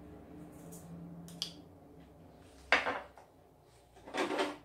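Two short clatters of kitchen utensils being handled at a stainless steel mixing bowl, about three and four seconds in, over a faint low hum.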